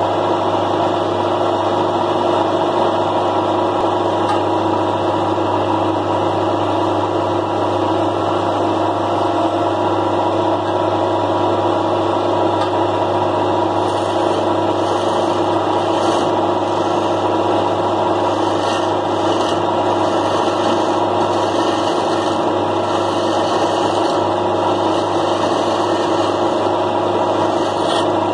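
Electric wood lathe running with a steady motor hum while a hand-held chisel cuts into the spinning wooden spindle. Bursts of cutting hiss come and go over the hum, most in the second half.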